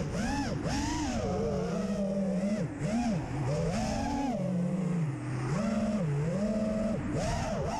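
Small FPV quadcopter's electric motors whining, the pitch swooping up and down every second or so as the throttle is punched and cut, over a low rumble of wind on the onboard microphone.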